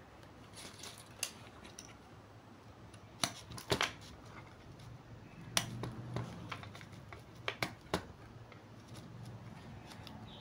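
Cutters snipping off excess wire ends after soldering on a switch-mode power supply board: a series of sharp clicks spread over several seconds, some in quick pairs.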